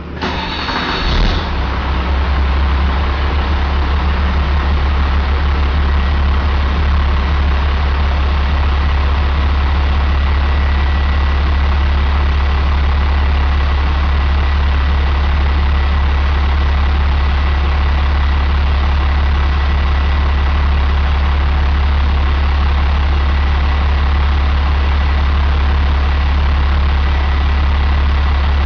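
2001 International DT466E inline-six turbo diesel engine on a run stand, coming up to speed in the first second or two after starting, then idling steadily with a faint steady high whine over it.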